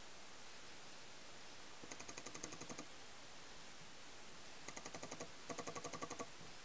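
Paintball markers firing rapid strings of shots, about ten a second, in three bursts.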